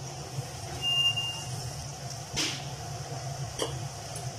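Potato fries deep-frying in hot oil in an aluminium kadai, a steady sizzle, with a few sharp clinks of the spatula against the pan later on. A short high beep sounds about a second in.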